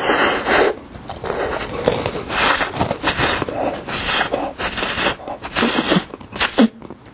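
Close-miked eating sounds: slurping chocolate dip straight from a snack cup and chewing, in a string of short, wet, breathy bursts.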